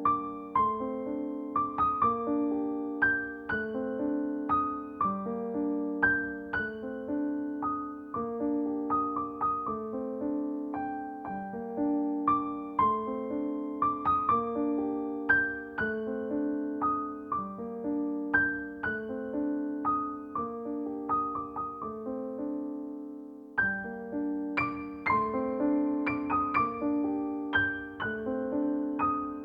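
Background solo piano music: a gentle, repeating pattern of notes, with a brief dip about three quarters of the way through before it picks up again.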